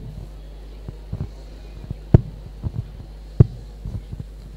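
Steady electrical hum from the stage sound system, with an irregular run of dull thumps and knocks over it. The loudest thumps come about two seconds in and again about three and a half seconds in.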